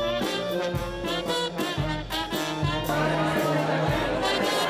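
Brass-led jazz band music: horns playing held and moving notes over a stepping bass line and a steady beat.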